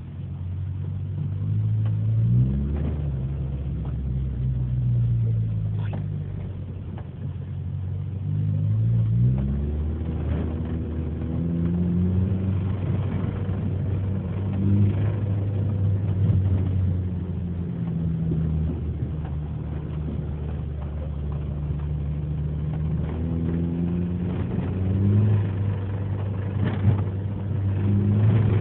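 Honda D15 inline-four engine idling and being revved several times, each rev rising and falling back, with a knock from the engine that the owner cannot place between the cylinder head and the bottom end.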